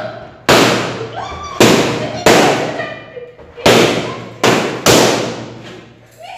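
Inflated rubber balloons being burst by hand one after another: about six sharp, loud bangs in quick, uneven succession, each followed by a short ringing tail in the room.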